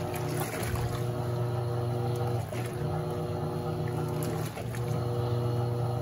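Electrolux LAC17 top-loading washing machine agitating a wash load: the motor hums steadily in runs of about two seconds, broken by short pauses as the wash action reverses, with water churning in the tub.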